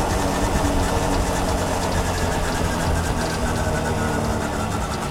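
1966 Honda P50 moped's small 50cc single-cylinder four-stroke engine running steadily under way, with a constant rush of noise over it.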